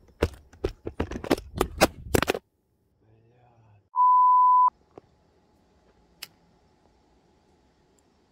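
Background music with a beat cuts off about two and a half seconds in. About four seconds in, a single steady high electronic beep sounds for under a second and is the loudest sound here. After it there is only a faint hum and one click.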